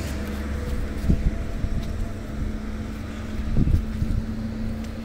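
A vehicle engine running steadily, a low even hum, with wind rumbling on the microphone and two brief bumps, about a second in and again about three and a half seconds in.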